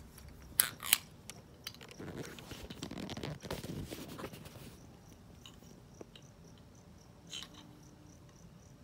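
Two sharp clicks about half a second in, then a few seconds of rustling handling noise. A cricket chirps steadily in the background, a little over twice a second.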